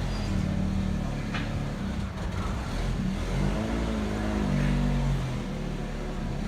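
Loud, bass-heavy music with deep held bass notes that step from pitch to pitch.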